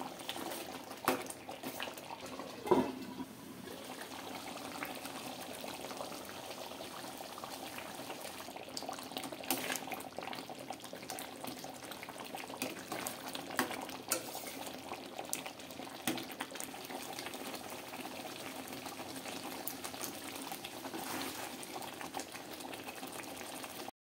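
Chicken curry simmering and bubbling in a steel pot while a metal ladle stirs it, clicking and scraping against the pot. There is one louder ringing clank about three seconds in.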